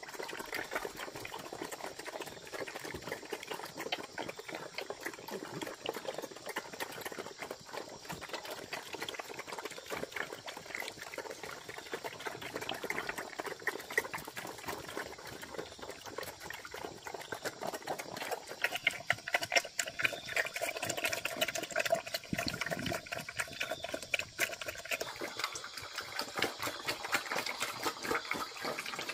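Black pigs feeding at troughs: steady wet slurping, smacking and chewing. It grows louder for several seconds about two-thirds of the way through.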